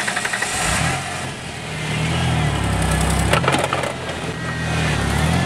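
1993 Ford Explorer Sport's 4.0-litre V6 engine revving up and down under load as the truck climbs a steep sandy ledge, with a few sharp cracks about three and a half seconds in.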